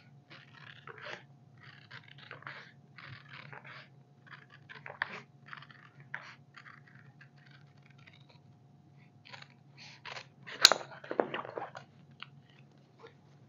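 Tailor's scissors cutting cloth in short, irregular snips, with a sharp knock about ten seconds in, over a steady low hum.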